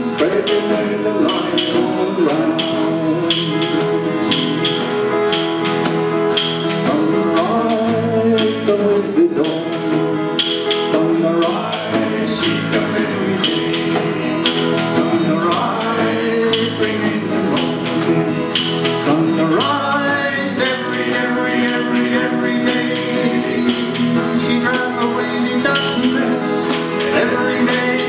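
Small acoustic folk band playing live: two acoustic guitars strumming chords under a steady hand-percussion shake of about two strokes a second, with voices singing over it.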